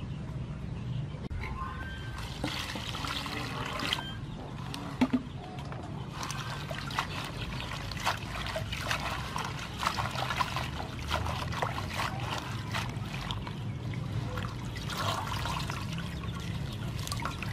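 Hands swishing leafy greens, including moringa leaves, in a steel bowl of water: repeated small splashes and sloshing, with water trickling and dripping as bunches are lifted out. A couple of sharp knocks about five seconds in are the loudest sounds.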